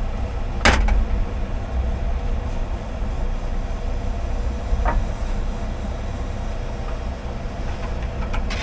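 Loglift timber crane being worked from its cab: a steady low hydraulic and engine rumble as the boom swings and extends, with a sharp click about a second in and a fainter one near the middle.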